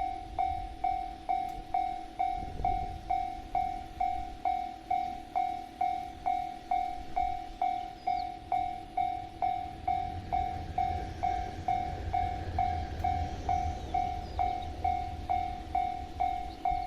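Japanese railway level-crossing alarm ringing its electronic bell tone, about two even dings a second, warning that a train is coming. A low rumble swells underneath it in the middle.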